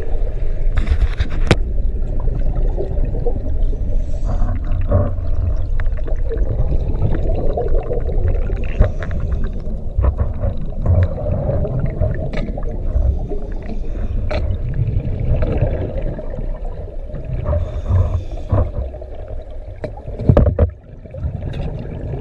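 Underwater rumble of churning water in a freshwater plunge pool beneath a waterfall, with gurgling bubbles and scattered short clicks.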